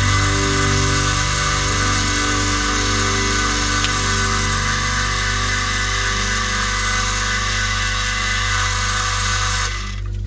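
Small wood lathe running at speed, a steady motor hum and hiss, with a paper towel held against the spinning wooden pen blank. The sound cuts off abruptly near the end.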